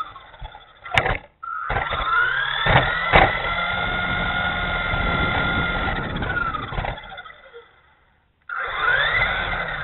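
Whine of a 1/18-scale Dromida SC4.18 RC truck's 370 brushed electric motor and gears, rising as it speeds up about a second and a half in, holding steady, then dying away, with tyre and drivetrain rumble and a couple of sharp knocks. The whine cuts out briefly and rises again near the end as the truck accelerates once more.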